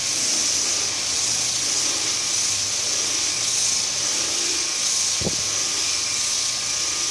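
Homemade disc sander, a 1/4 hp washing-machine motor spinning a sandpaper-faced rubber disc, running against rough wood with a steady hiss of abrasion over a faint motor hum. A single short low knock about five seconds in.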